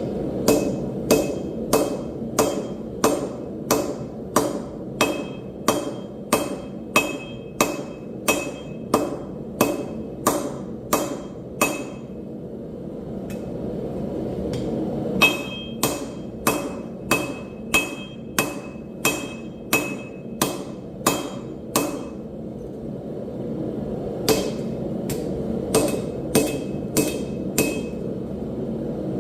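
Hand hammer forging steel on an anvil: steady blows about two a second, many with a bright metallic ring. The blows come in three runs, broken by short pauses of two or three seconds.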